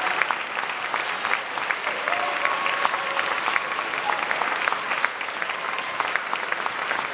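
Audience applauding at the end of a song, a dense patter of many hands clapping, with a few faint voices calling out over it.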